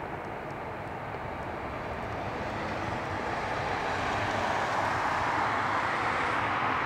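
Airbus A340-300 jet airliner rolling out after landing, its engines a steady rushing noise with a low rumble that grows slowly louder.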